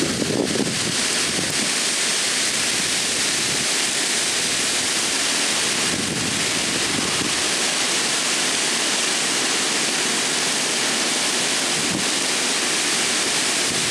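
Heavy tropical-storm rain and gusting wind, a steady unbroken hiss of downpour through the trees; wind briefly buffets the microphone near the start.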